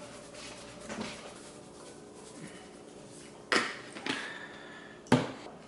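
Quiet handling of a plastic shaker bottle of meat tenderizer as it is sprinkled over raw brisket, with three sharp clicks in the second half, the last the loudest.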